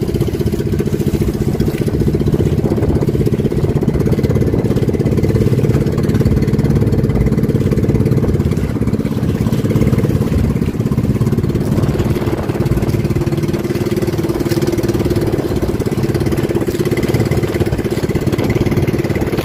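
A fishing boat's engine running steadily while the boat is under way, a dense, continuous low drone.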